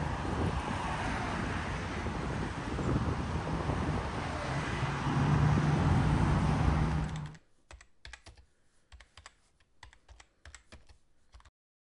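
Road traffic and wind noise outdoors, with a steady low engine hum, cutting off abruptly about seven seconds in. Only faint scattered clicks follow.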